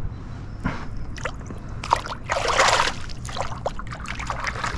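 Water sloshing and splashing around a kayak, with scattered small knocks and clicks. A louder splash comes about two and a half seconds in.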